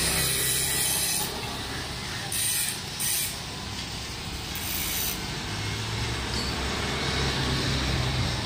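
Street traffic noise: a steady hiss and low rumble of passing road vehicles, with two short hissing bursts about two and three seconds in.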